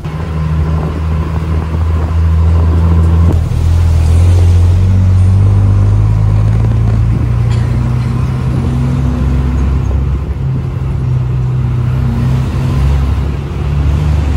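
Bus engine heard from inside the cabin, pulling away and running along, getting louder about half a second in, its pitch stepping up and down several times as the bus changes gear and speed.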